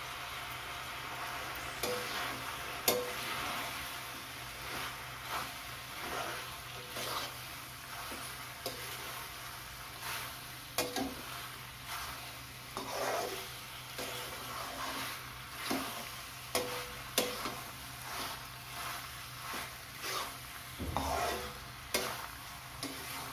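Metal ladle scraping and knocking against a metal kadhai as boiled penne is stirred and tossed through a sizzling tomato masala, the knocks coming irregularly about once a second over a steady sizzle.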